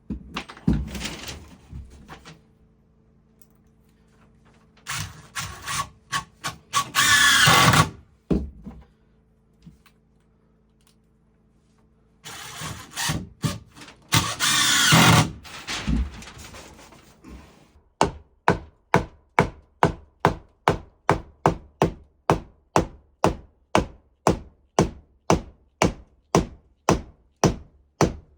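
Carpentry tool work: irregular bursts of tool noise and knocks, then steady hammering, about two even blows a second, through the last third.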